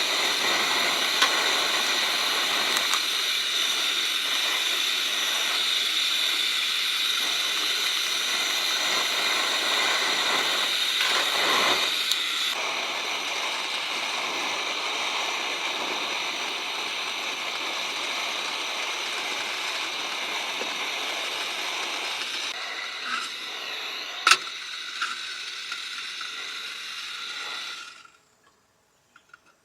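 Steady rushing noise, with a steady high-pitched drone over it that is strongest in the first half. A few clicks come near the end, and then the sound cuts off suddenly.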